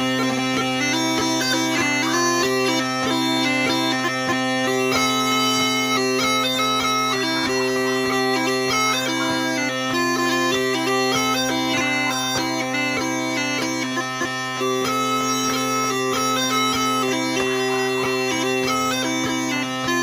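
Bagpipes playing a melody on the chanter over steady, unbroken drones.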